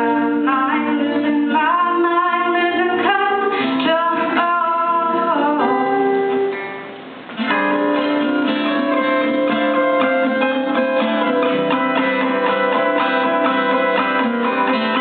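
Acoustic guitar strummed, with a woman singing over it. The sound dips briefly about halfway through, then the guitar carries on with steadier held notes.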